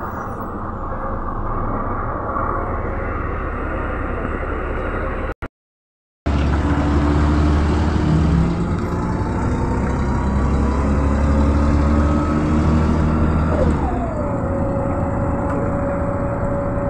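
Mercedes-Benz O405 city bus heard from inside the passenger cabin, its diesel engine running as the bus pulls away and drives in traffic. The sound cuts out for just under a second about five seconds in, then returns louder. About fourteen seconds in, a whine slides down in pitch and then holds steady.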